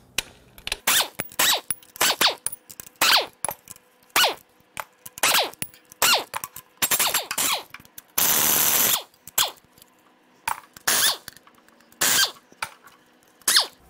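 Pneumatic impact wrench loosening exhaust manifold bolts on a V8 cylinder head, run in many short trigger bursts with one longer run of about a second just past the middle.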